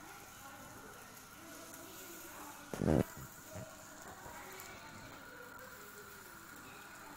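Faint steady hiss from the stovetop, where baghrir cook on a griddle over a gas flame. One short, loud clatter of a kitchen utensil comes about three seconds in.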